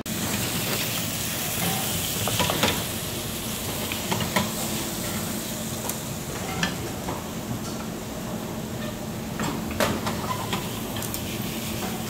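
Food sizzling as it fries in pans on a stove, with occasional clicks and scrapes of spatulas and chopsticks stirring in the pans.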